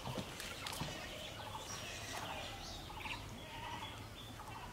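Birds chirping and calling, with many short whistled chirps and quick rattling trills repeated throughout.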